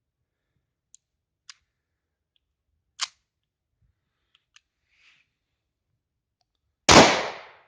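A few small clicks of handling the pistol, with a sharper metallic click about three seconds in, then a single 9mm shot from a P.08 Luger pistol near the end, dying away within about half a second.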